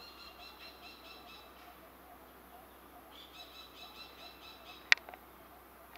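A bird singing two runs of quick, evenly repeated high notes, about six or seven a second, each run lasting under two seconds. A single sharp click comes near the end.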